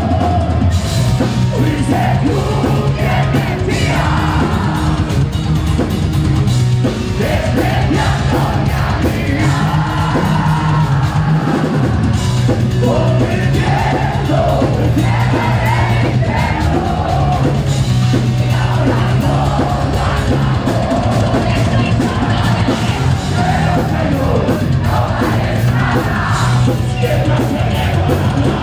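A heavy metal band playing live: distorted electric guitars, bass and a drum kit, with lead vocals sung and shouted over them, loud and continuous.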